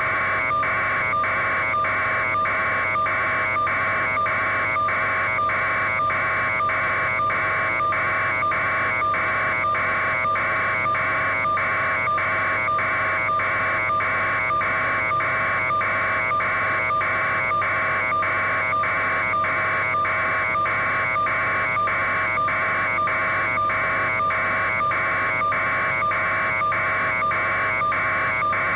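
A loud electronic buzzing tone pulsing evenly and without a break, over a steady lower hum.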